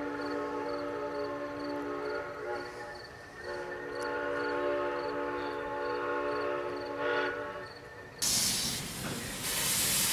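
Chime steam whistle of a ride-on scale steam locomotive blowing, a chord of several notes, with a long blast that breaks off about three seconds in and a second long blast that ends a little after seven seconds. Faint ticking runs underneath at about two a second. Shortly after the whistle stops, a loud hiss of escaping steam cuts in suddenly.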